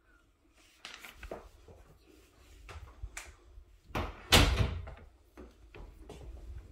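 Interior door being handled and pushed shut: one loud knock of the door about four seconds in, among smaller knocks and rustles.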